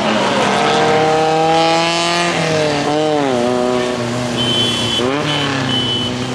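Classic racing car engines on a wet track: one engine revs up steadily, drops at a gear change about two seconds in, then falls and picks up again around three and five seconds as the cars brake and accelerate through a corner, over the hiss of tyres in spray. A thin, high squeal repeats in the second half.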